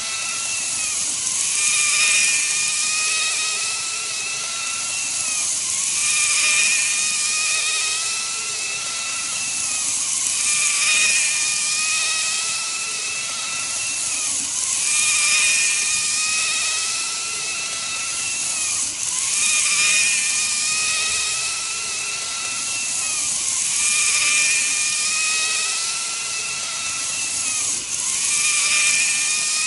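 N-gauge model train running: the whine of its KATO motor unit with wheel and track hiss, swelling louder and higher about every four and a half seconds.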